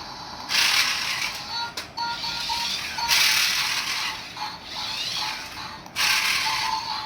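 A small geared mechanism whirring and ratcheting in repeated bursts of about a second each, three times, with short faint tones in the gaps.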